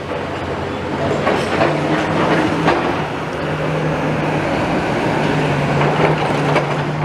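Heavy plant running steadily with a low engine hum, with stones and soil rattling and clattering irregularly over it as rubble is sorted.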